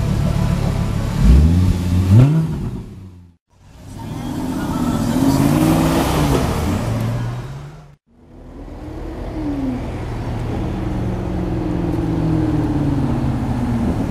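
Audi R8 engine blipped twice in quick succession, the pitch shooting up on each rev. After a cut, a car engine swells and fades as it accelerates past. After another cut, a Maserati GranCabrio's V8 runs steadily, slowly building as the car pulls along the street.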